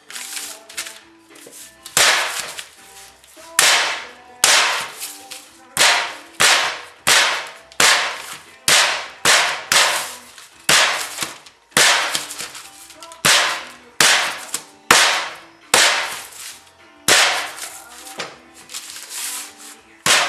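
A wooden rolling pin beating a block of butter on paper on a tiled counter to soften it for croissant dough. The sharp whacks come about one and a half a second, growing loud about two seconds in.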